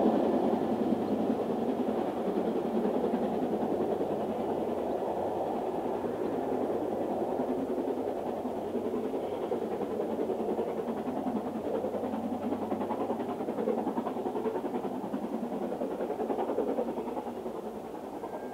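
Steam-hauled train pulling away, hauled by Stanier Princess Coronation Class 4-6-2 No. 46233 'Duchess of Sutherland': a steady rumble of coach wheels on the rails and the working locomotive, fading slowly as the train recedes.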